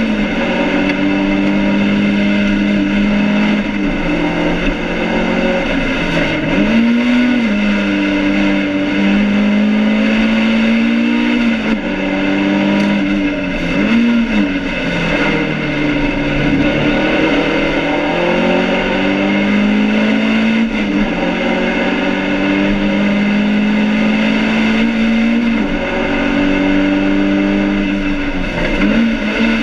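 BMW 2002 race car's four-cylinder engine running hard, heard inside the stripped cabin. The engine's pitch holds high and steady, then briefly dips and swells several times, as with lifts off the throttle and gear changes.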